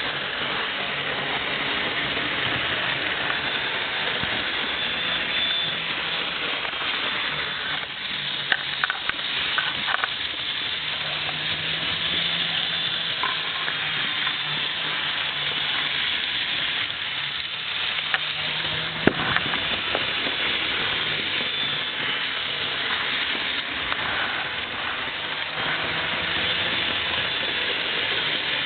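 Bachmann HO-scale Union Pacific EMD F9 model locomotive running around a circle of track, close by: a steady hissing whir of its small motor and wheels on the rails, with a few sharp clicks.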